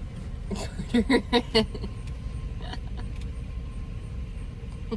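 Steady low road rumble heard from inside a moving vehicle, with a short burst of voice about a second in.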